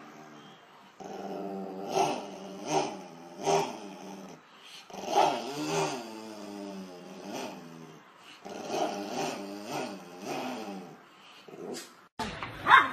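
A small terrier growling in long, wavering snarls, broken by short, louder barks, at a hand teasing its face. About twelve seconds in the sound cuts abruptly to something louder and different.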